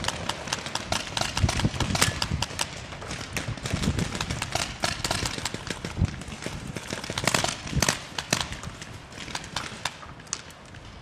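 Paintball markers firing in rapid, irregular pops, thinning out near the end.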